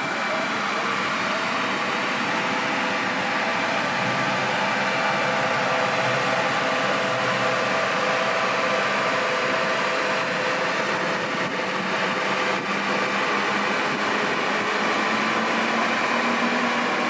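Steady mechanical whirring hum with several held tones, unchanging throughout.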